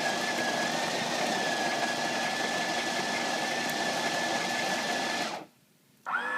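Coffee machine running after its small-cup button is pressed: a steady mechanical whir with a high whine over it. It cuts off abruptly about five and a half seconds in, and another machine tone starts just before the end.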